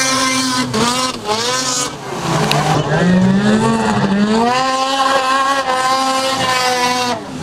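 Snowmobile engines running hard as the sleds skim across open water, the engine pitch climbing and falling with the throttle. The sound breaks off abruptly a few times and picks up again.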